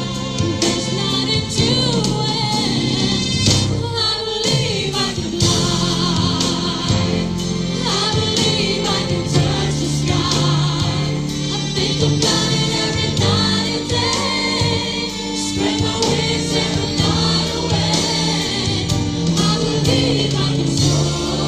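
Live gospel-style pop ballad: a solo singer holding long notes with vibrato over a backing choir, band and steady drum beats.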